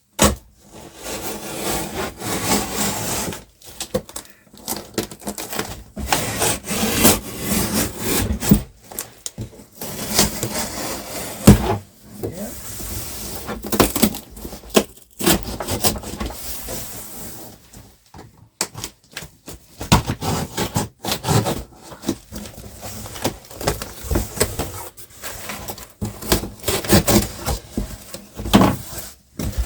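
A box opener being worked down the middle of a shipping box to cut it open, in irregular scraping strokes with occasional sharp knocks and short pauses.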